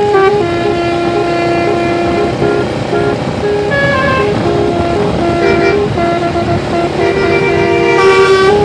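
Bus's Basuri telolet musical horn playing a tune: a string of held notes that step up and down in pitch, each lasting from a fraction of a second to over a second.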